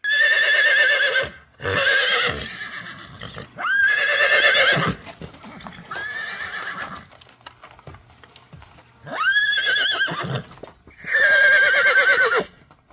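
A horse whinnying about six times, each neigh a loud call of about a second with a quavering, shaking pitch, one of them fainter about six seconds in.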